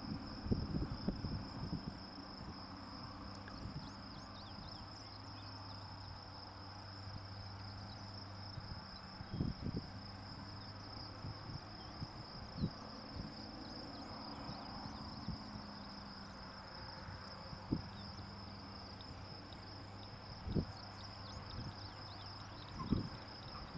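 Steady high-pitched chorus of insects, with a faint low hum under it that fades about halfway through and occasional short low thumps.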